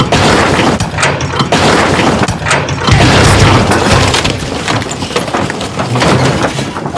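A caravan dropped onto a Toyota Hilux pickup, crashing and breaking up on the cab roof: a string of loud crashes and breaking noises, with bits of glass and panel shattering.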